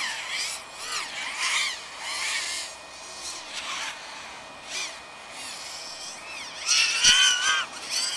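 FPV racing quadcopter's motors and propellers whining, the pitch swooping up and down again and again as the throttle is worked, loudest near the end. A short low thump about seven seconds in.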